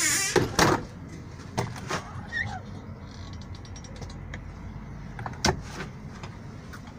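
Steady low drone of a moving Mercedes-Benz O500 RSD coach heard from inside, with a series of sharp clicks and knocks from cabinet doors, a hinged lid and latches in the onboard restroom being opened and shut; the loudest knocks come near the start and about five seconds in.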